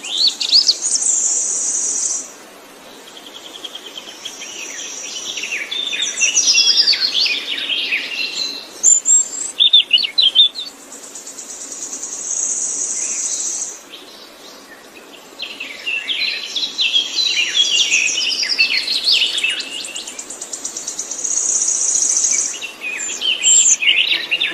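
Songbird singing in repeated bouts: long, even, very high trills alternate with rapid jumbled chirping phrases, with short pauses between bouts.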